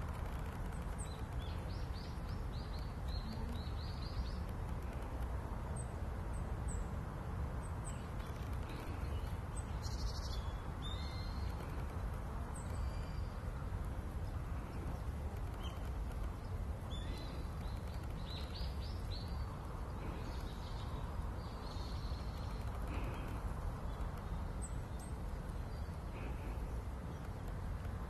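Small birds chirping off and on, short high notes in quick runs near the start and again past the middle, over a steady low rumble of background noise.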